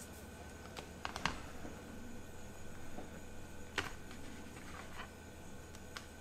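A handful of light clicks and taps from fingers handling a phone in a clear plastic installation tray, the clearest a little over a second in and near four seconds, over a faint steady hum.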